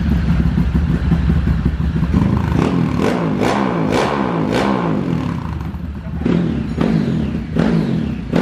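Tuned two-valve 150 cc single-cylinder motorcycle engine running on a stand and revved in repeated throttle blips, its pitch climbing and falling several times, with a longer run of revving about two seconds in and shorter blips near the end.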